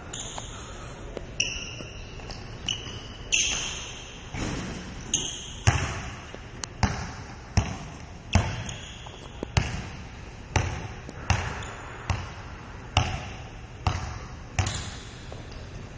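Basketball being dribbled on a gym's wooden court, a steady bounce about once a second, each bounce echoing in the large hall. A few short high squeaks come in the first few seconds.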